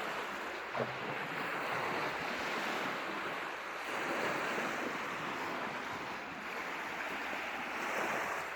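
Lake waves washing onto a beach, a steady rush of surf that swells a little about four seconds in and again near the end.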